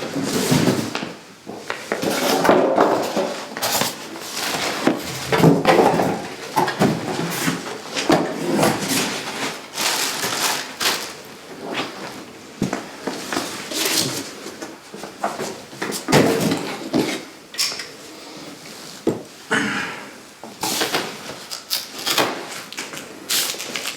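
Unboxing: a cardboard shipping box and its packing being opened and handled, with irregular rustling, scraping and knocks.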